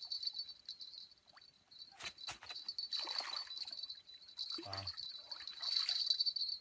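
Insects buzzing steadily in a high, fast-pulsing drone, with a few sharp knocks about two seconds in and a short pitched call or voice a little past the middle.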